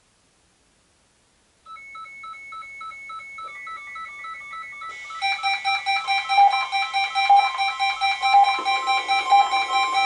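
Several NOAA weather radio receivers sounding their electronic alert beeps for the weekly test. One starts a rapid chirping of alternating beeps about two seconds in, and around five seconds more radios join with louder pulsing tones, all overlapping.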